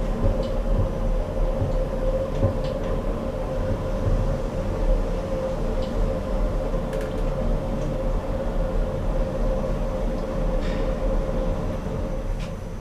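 Lift car travelling in its shaft: a steady motor hum over a low rumble, with a few faint clicks, growing quieter near the end.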